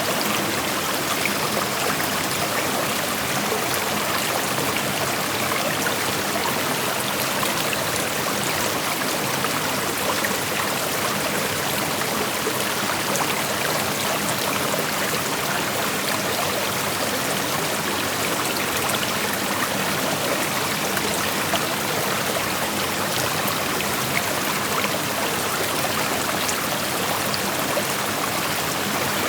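Creek water flowing and rushing over rocks, a steady, even wash of noise with no breaks.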